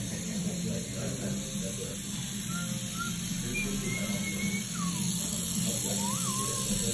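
Steady low hum of a tattoo machine running, with a few short, thin, high squeaks in the second half.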